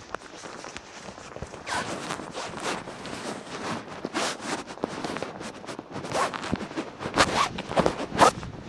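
Footsteps at a walking pace on a damp tarmac pavement, a short scuff or tap with each step. The steps get louder near the end.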